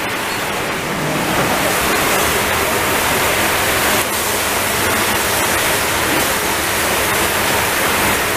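Burger patties sizzling on a round open-flame grill as dripping grease flares up in the fire: a steady hiss that grows louder about a second in, with a few faint clicks.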